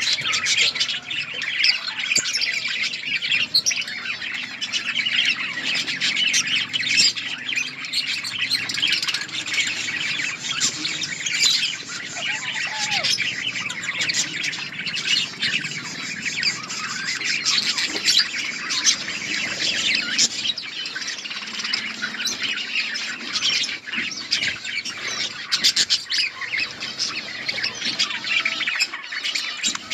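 A flock of budgerigars chattering continuously, many birds chirping and squawking over one another in a dense, steady din.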